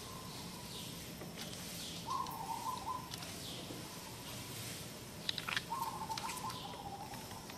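A bird calls a short falling chirp about once a second over outdoor ambience. Two raspy, buzzy notes of about a second each come in, and a few sharp ticks sound about two thirds of the way through.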